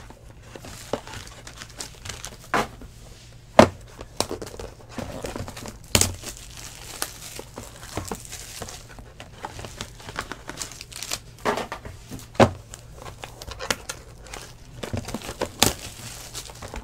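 Clear cellophane wrapping on a trading-card box crinkling and tearing as it is stripped off by hand, with several sharp plastic snaps along the way.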